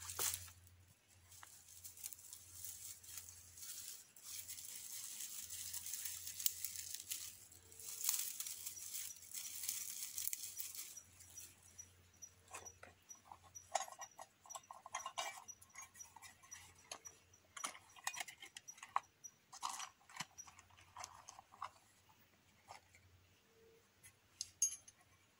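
Dry twigs rustling and snapping as they are handled and broken by hand to lay kindling for a campfire. The first half is a long dry rustle; the second half is scattered sharp snaps and clicks.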